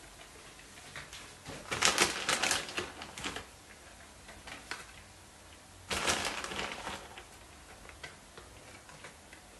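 A plastic bag of grated mozzarella crinkling and rustling as cheese is taken out and scattered by hand, in two bursts about two seconds in and again around six seconds, with small crackles between.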